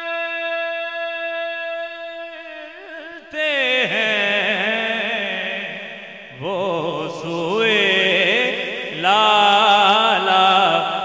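Man singing a naat without words: a long steady held note, then melismatic runs with quick wavering ornaments, growing louder near the end.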